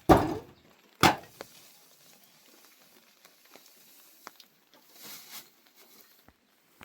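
Two loud knocks about a second apart, then a few faint clicks and taps.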